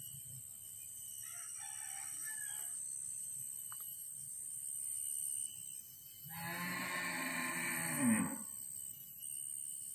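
A farm animal calls once, a loud call of about two seconds that drops in pitch at its end, with a fainter call about a second and a half in.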